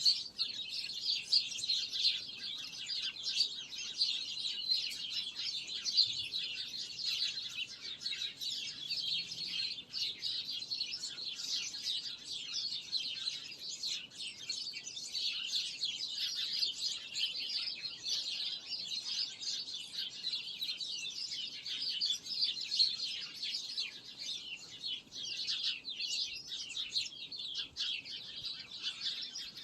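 Many small birds chirping and trilling at once, a dense, continuous chorus of quick high-pitched notes.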